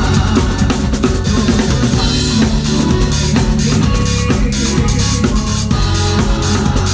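Drum kit played at full tilt, with bass drum, snare and cymbals driving a live band. Held pitched notes from electric guitar and keyboard run underneath.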